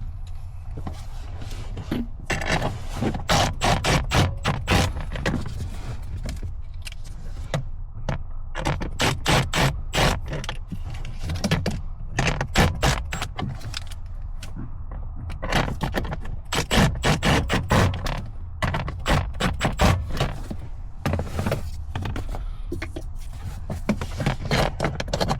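Runs of rapid clicking and scraping in bursts of a few seconds each, from hand tools and dash parts being worked during reassembly.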